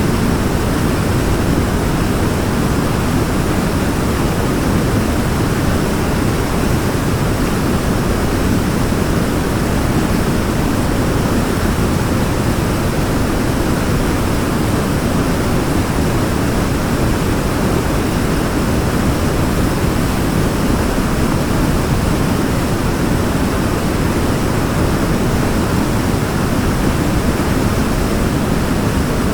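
Waterfall: water pouring and splashing in a steady, unbroken rush, heaviest in the low and middle range.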